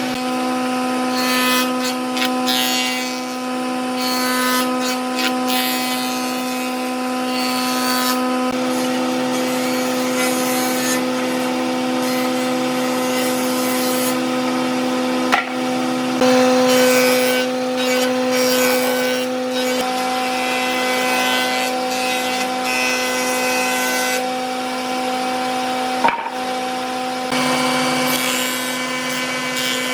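Electric woodworking power tool running at a steady pitch while it cuts or sands wood. A rasping noise comes and goes on top of the hum, with two sharp knocks, one about halfway through and one later.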